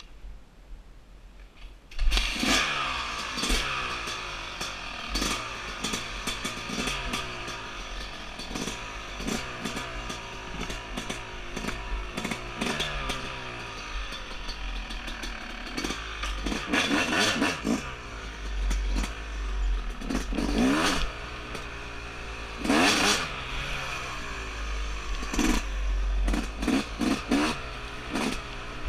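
2017 Yamaha YZ250's two-stroke single-cylinder engine starting suddenly about two seconds in, then running and revving in repeated short blips as the dirt bike pulls away.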